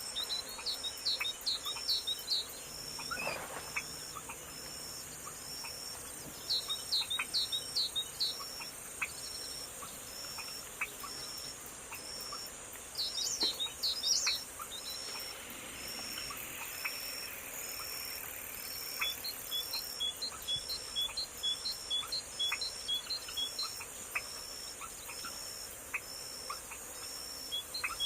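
Forest ambience: small birds chirping in short bursts and a run of quick high notes, over a steady, evenly repeated high insect chirp.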